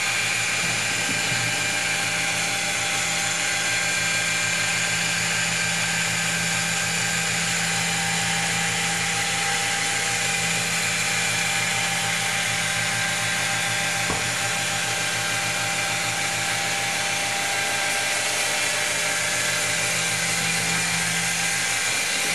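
Handheld water-fed electric stone polisher running steadily, its round pad pressed against and worked over a vertical stone wall: an even motor whine over the rush of the pad on the stone.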